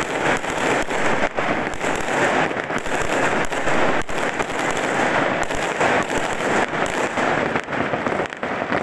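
Many fireworks and firecrackers going off at once across a city: a dense, unbroken barrage of overlapping bangs and crackles, near and far.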